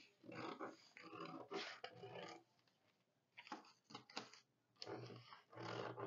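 Scissors cutting through brown paper pattern, faint irregular crunching snips as the sleeve pattern is slashed along its marked lines, with a short pause about halfway.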